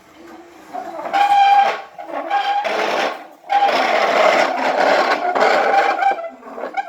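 A pet animal making drawn-out, rasping vocal noises in three stretches, the last and longest lasting nearly three seconds.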